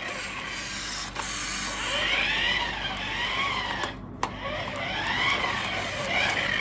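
Remote-control toy Bugatti car's small electric drive motor and gears whining as it drives away and back, the pitch rising and falling twice as it speeds up and slows, with a couple of sharp clicks.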